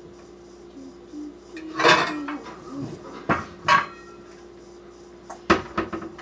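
Metal pots and pans clattering and clanking as they are rummaged through and one is pulled out of a lower kitchen cabinet. A loud clatter comes about two seconds in, two sharp clanks follow, and a quick run of knocks comes near the end.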